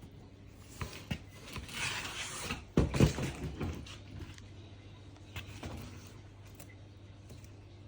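Handling noises: a couple of clicks, a rustle, then two loud knocks about three seconds in and a few lighter ones later, over a steady low hum.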